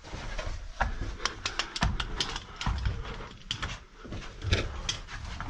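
Irregular clicks, clinks and scrapes of a caver moving over rock, footsteps and scuffs mixed with the knock of metal climbing gear.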